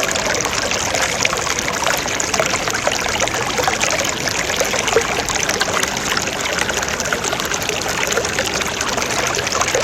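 Steady running water, a trickle or stream, with small crackles through it.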